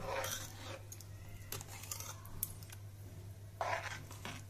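Metal ladle stirring thick sambar in a pressure-cooker pot: soft scraping and sloshing, with a few light clicks of the ladle against the pot.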